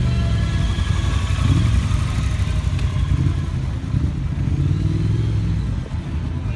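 Motorcycle engine running with a lumpy beat, revved up and back down a couple of times, then dropping away near the end.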